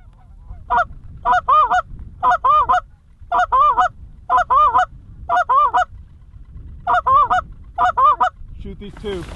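Specklebelly (white-fronted goose) call blown by a hunter at geese working the decoys: eight loud bursts of two or three quick yelping notes, about one burst a second, with a short break about six seconds in.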